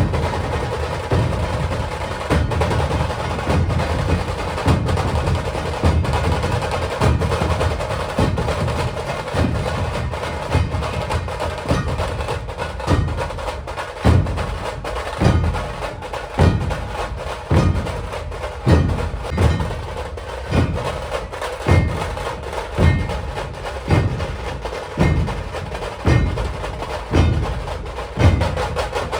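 Dhol tasha drumming: a continuous rattling tasha roll over deep dhol strokes, which settle into an even beat of a little over one stroke a second from about halfway through.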